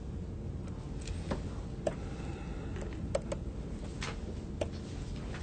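Several light, sharp ticks scattered irregularly over a steady low room hum: a stylus tapping on a tablet screen while handwriting.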